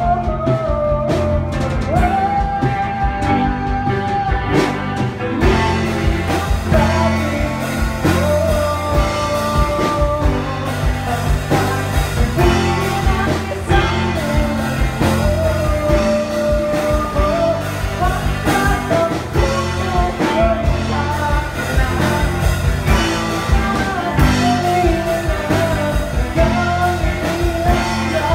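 Live band playing a rock song in a small rehearsal studio: electric bass and drum kit under a sung melody, loud and continuous.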